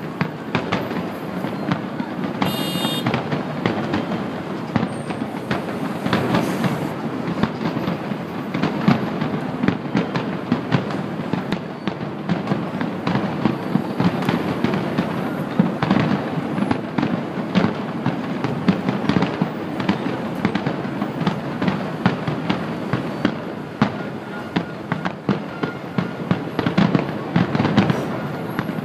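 Fireworks display going off in a dense, unbroken barrage of crackles, pops and deeper booms, with a brief high whistle about three seconds in.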